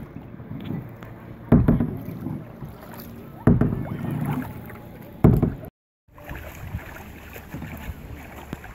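Canoe paddle strokes in the water, three loud swishes about two seconds apart, with wind on the microphone. After a brief dropout comes a quieter, steady wash of water and wind.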